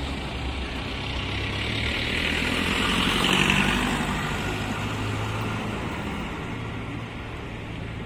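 Road vehicles driving past close by, a car and then a minibus. The engine and tyre noise swells to its loudest a little past the middle and then fades away.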